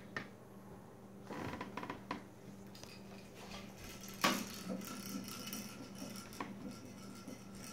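Light clicks, clinks and knocks from a toddler handling a small toy and moving about on a parquet floor, the sharpest knock about four seconds in, over a faint steady hum.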